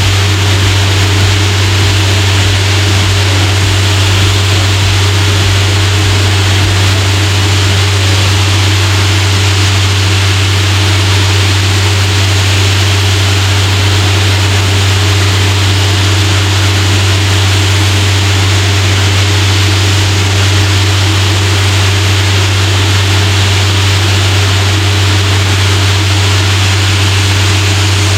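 Diesel air compressor running steadily with a constant low hum, under the loud, even rushing hiss of compressed air from a blower.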